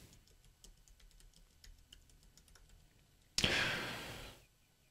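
Faint, scattered clicks of typing on a computer keyboard. About three and a half seconds in, a brief rush of noise starts suddenly and fades away.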